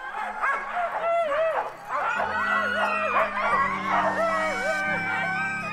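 A team of harnessed Siberian huskies howling, yipping and barking over one another, the excited clamour of sled dogs eager to start running.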